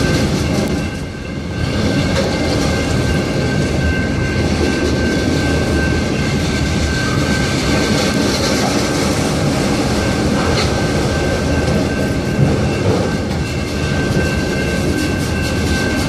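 Autorack freight cars rolling past close by: a steady rumble and clatter of steel wheels on the rails, with a thin steady high squeal running through it.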